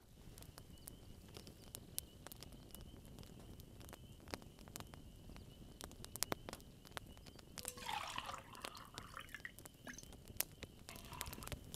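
Campfire crackling, with sharp pops throughout. About eight seconds in, and again near the end, liquid is poured from a glass bottle into an enamel tin cup.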